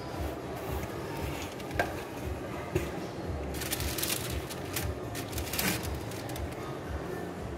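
A sheet of white paper lining a cardboard box of chocolates rustles as it is handled and lifted out, in two bursts about halfway through and again near the end, over a steady low hum. A couple of light clicks come before the rustling.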